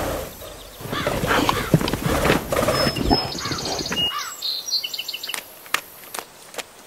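Bush animal sound effects: a rough, pulsing animal call for about three seconds, then high bird chirps.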